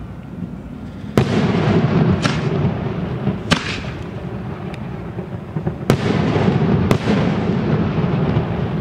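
Aerial fireworks going off: about five sharp bangs, the first about a second in and the rest spread over the next six seconds, with a continuous low din of further bursts and their echo between them.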